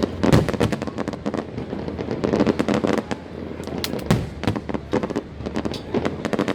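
A fireworks display: shells bursting in quick succession, several loud bangs a second over a continuous rumble and crackle.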